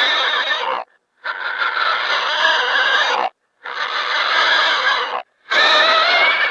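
Four harsh, wheezy squealing cries, each one to two seconds long, with short silent gaps between them.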